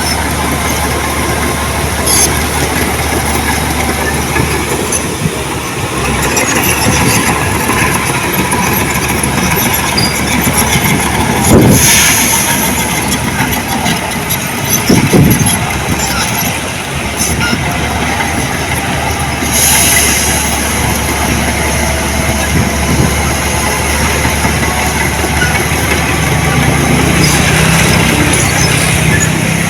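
Heavy diesel earthmoving machine running steadily, with three louder knocks or clanks spread through.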